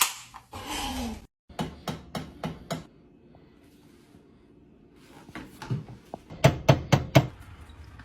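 A drink can popped open with a sharp crack and a short fizz. After a brief cut come two runs of sharp knocks, about six in each, the second run louder.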